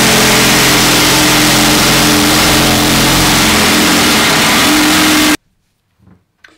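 Power drill running with a steady whine, its bit wiggled around in a drilled hole in the steel ammo can to widen it. It cuts off abruptly about five seconds in.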